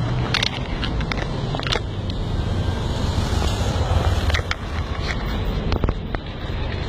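Outdoor ambience: a steady low rumble, like wind on the microphone or distant traffic, with scattered sharp clicks and knocks.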